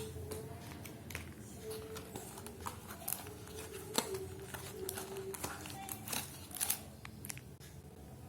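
Hands handling a smartphone and its packaging: scattered clicks and taps, one sharper about four seconds in, with light crinkling.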